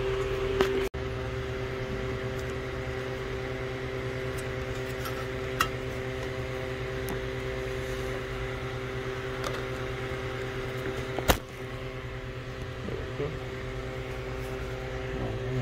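A steady machine hum with several held tones, from a motor running somewhere in the shop. Over it come a few sharp metal clicks of pliers working spring hose clamps on the engine's hoses, the loudest about eleven seconds in.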